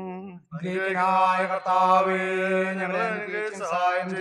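A liturgical chant sung to a slow melody with long held notes, breaking off briefly about half a second in before carrying on; it is the sung response to the call to prayer in the baptism service.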